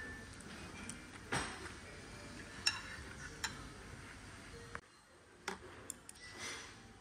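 A few light clinks and taps of ceramic bowls and a metal spoon on a tray over low background room noise. One clink, nearly three seconds in, rings briefly.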